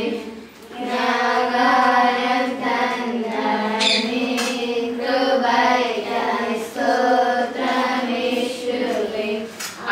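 Children's voices singing together in unison, in short held phrases with brief breaks between them.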